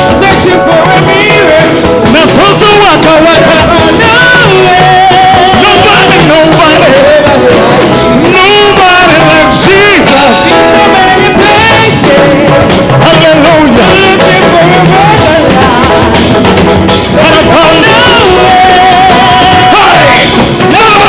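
Loud live gospel praise music: a full band playing, with singing over it.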